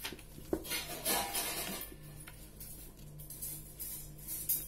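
A sheet of coloured paper being folded and creased by hand: papery rustling and crinkling in several short bursts, the longest lasting about a second soon after the start, with more near the end.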